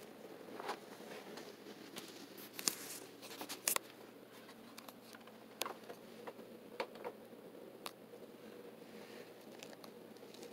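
Rubber soles of Converse canvas sneakers scuffing and tapping on a wooden floor: a dozen or so scattered short taps and scuffs, the sharpest a little under three and four seconds in.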